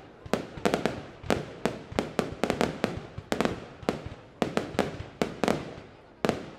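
Fireworks display: a rapid, uneven run of sharp bangs, about three or four a second, each trailing off in a short echo, with a brief lull near the end.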